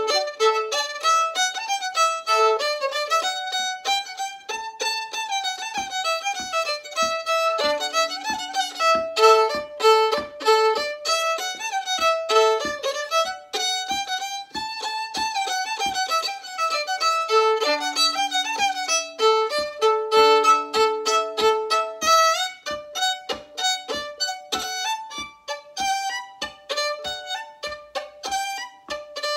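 Solo fiddle playing a fast traditional Irish reel, quick bowed notes with double-stopped drones. From about six seconds in, a steady tapping beat runs under the tune.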